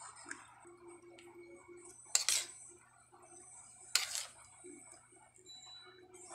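A metal spoon clinking sharply against a plate twice during a meal, about two seconds apart, each clink ringing briefly, over a low steady hum.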